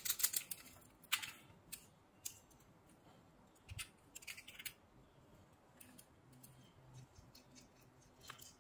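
Small sharp clicks and rattles of the Weller DSX80 desoldering gun's glass solder-collection chamber, red end cap and metal barrel being handled, taken off and fitted back. A quick run of clicks comes at the start, a few single clicks follow, a cluster comes around four seconds in, and more clicks come near the end.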